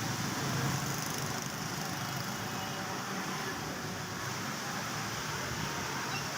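Steady hiss of monsoon rain falling, with a low hum of street traffic underneath.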